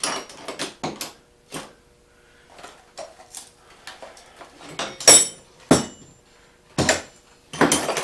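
Metal parts and tools being handled during moped repair work, clinking and knocking at irregular intervals. The loudest clanks come about five seconds in and near the end.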